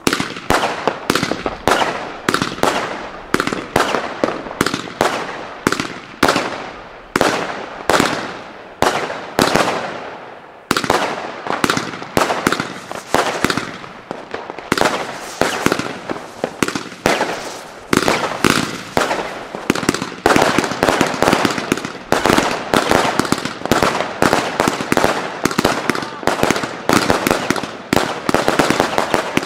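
Category 2 Blue Peony fireworks cake firing shot after shot: a rapid, steady string of sharp launch-and-burst bangs, each with a short decaying tail. There is a brief lull about ten seconds in, and the shots come thicker from about twenty seconds on.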